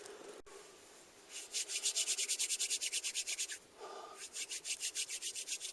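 Rapid rhythmic rubbing strokes, about ten a second, in two runs with a short break between.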